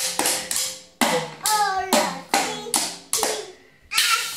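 A child's drum kit struck with sticks in uneven beats, about two a second, each stroke ringing briefly, with a pause before a last hit near the end.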